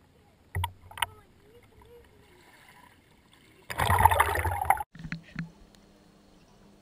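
Shallow seawater washing against a camera set at the water's edge: two short splashes about half a second and a second in, then a louder rush of water lasting about a second that stops abruptly. A faint steady low hum follows.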